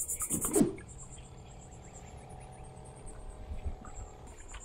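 Insects chirping loudly in a fast, even pulse, with a splash of water from a hand, both cut off about half a second in; then a much quieter stretch with a faint steady hum and low rumble.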